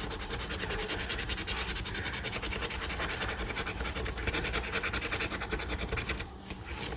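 Rapid, repeated scratching strokes rubbing the coating off a scratch-off lottery ticket, easing off about six seconds in.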